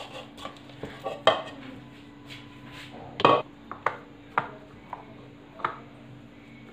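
Kitchenware being handled on a marble countertop: a plastic mixing bowl with dough and utensils moved and set down, giving a few scattered knocks and clatters, the loudest about a second and three seconds in. A faint steady hum runs underneath.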